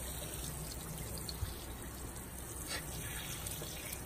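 Kitchen faucet running steadily, its stream splashing onto a wet puppy's body and into a stainless steel sink.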